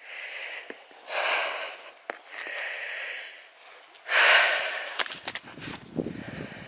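A person breathing heavily close to the microphone: four long, unpitched breaths, the loudest about four seconds in, followed by some low rumbling near the end.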